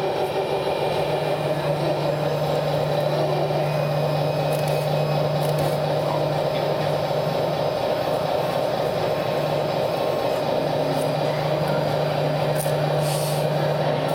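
Radio-controlled Wedico CAT 966G wheel loader model running, giving a steady mechanical hum from its drive and hydraulics; the low hum drops out briefly about ten seconds in.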